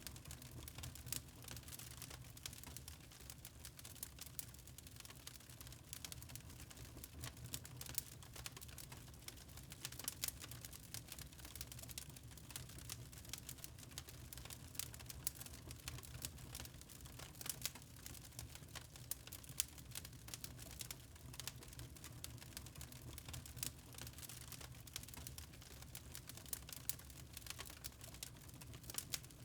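Wood fire crackling in a fireplace: dense, irregular snaps and pops over a low steady rumble.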